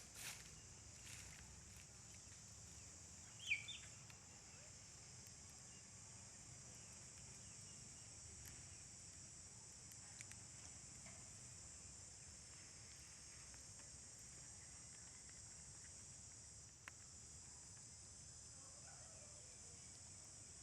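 Faint, steady high-pitched buzzing of insects, with one brief high chirp-like call about three and a half seconds in.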